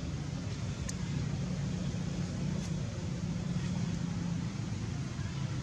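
Steady low background rumble, like a motor running at a distance, with two faint clicks about one and three seconds in.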